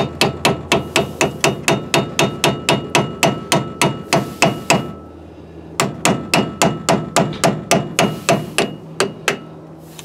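A hammer taps quickly on a screwdriver set against the metal dust cap of a GMC Sonoma's front wheel hub, to pop the cap off. The sharp metal strikes come about five a second. They stop for about a second midway, then resume and stop shortly before the end.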